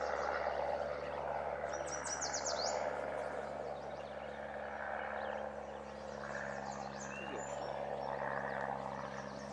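Birds chirping over steady outdoor background noise, with a quick run of high, falling notes about two seconds in.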